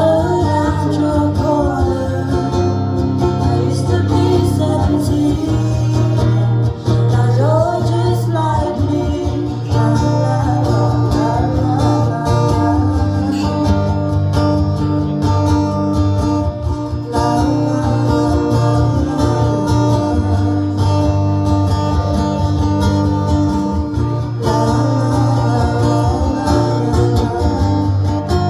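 A song performed live: acoustic guitar played with a singer's voice over it.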